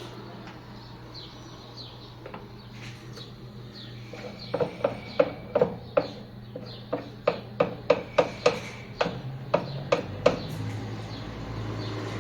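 A run of sharp knocks or taps, about three a second for some six seconds starting near a third of the way in, over a steady low hum.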